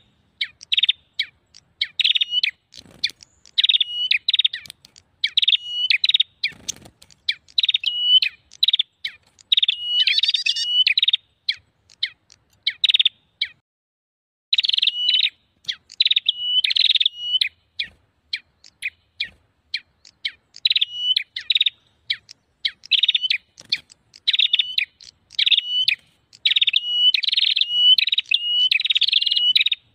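Prenjak songbird calls in a noisy, agitated chattering series: sharp high chirps repeated several times a second, with one short break about halfway through. It is the 'ribut' (noisy) prenjak call used as a lure recording to draw wild prenjak in.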